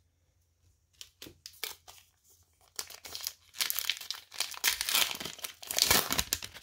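A 2020 Topps Gypsy Queen trading-card pack wrapper being torn open by hand along its crimped seam and crinkling. Scattered crackles start about a second in, then the crinkling and tearing grow dense through the second half.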